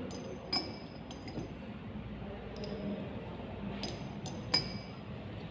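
Laboratory glassware clinking: a glass dropper or rod tapping against glass bottles and a test tube in several light, sharp clinks. The loudest comes about four and a half seconds in.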